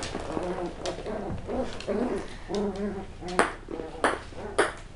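West Highland White Terrier puppies at play, making short pitched growls and yips, with several sharp clicks and taps about a second in and near the end.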